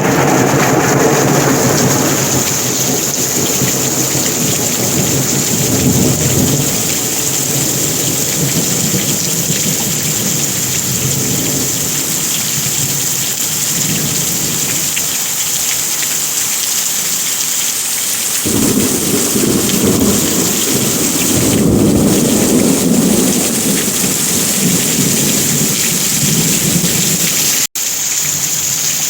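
Heavy rain falling steadily in a backyard. Thunder rumbles low at the start and again about two thirds of the way in. The sound cuts out for an instant near the end.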